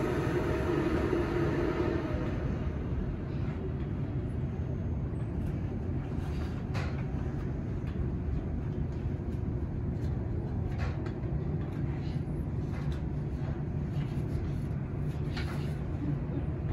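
Wengernalpbahn narrow-gauge rack-railway train running downhill, heard from on board: a steady low rumble with scattered clicks, and a hum that fades out in the first two seconds.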